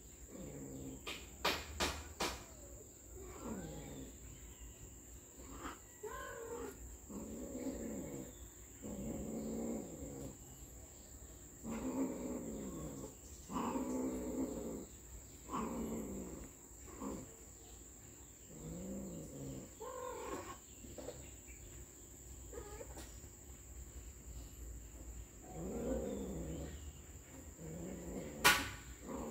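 Cats yowling: about a dozen long, wavering calls, each rising then falling in pitch, with a lull of a few seconds in the latter part.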